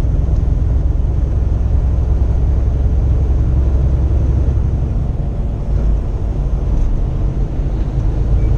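Steady low drone of a 2015 Kenworth T680 semi-truck at highway cruising speed, engine and tyre noise heard inside the cab.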